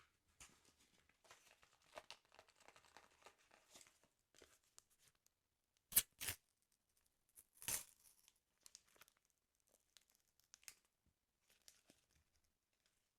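Quiet handling of a football sticker album's paper: soft rustling, then two short sharp tearing sounds about six seconds in and another just before eight seconds.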